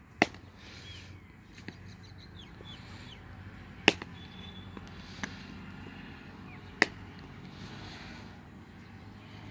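Cricket bat striking the ball in batting practice: three sharp cracks about three seconds apart, with two fainter knocks between them.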